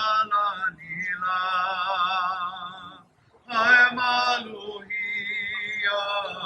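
Singing: a voice holding long notes with vibrato, in phrases broken by a short pause about halfway through.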